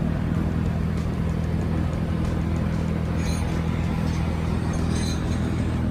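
Steady low machine hum, with a few faint light clicks about three and five seconds in.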